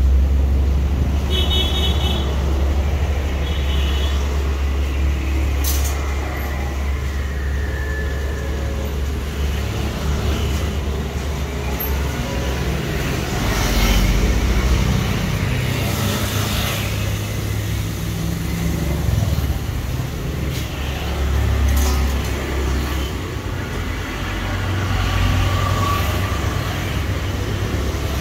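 Street traffic: a steady low rumble of motor vehicle engines, with a vehicle horn beeping twice in the first few seconds and a few sharp clicks.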